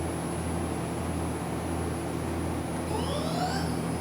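Okuma CNC lathe's main spindle running with a steady hum. Near the end a rising whine sets in as the spindle speeds up from 1,000 toward 2,000 RPM.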